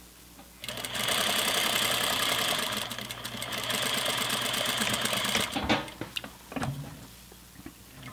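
Sewing machine running at speed, stitching a seam through muslin. It starts about half a second in, eases briefly near three seconds, then stops about five and a half seconds in, followed by a few short clicks and knocks.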